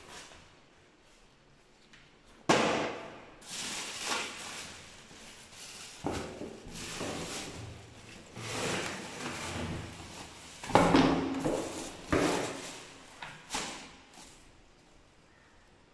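Parts of a Kärcher WD3 vacuum cleaner being handled during unboxing: a string of clunks, knocks and scraping. The sharpest knocks come about two and a half seconds in and again near eleven and twelve seconds. The vacuum's motor is not running.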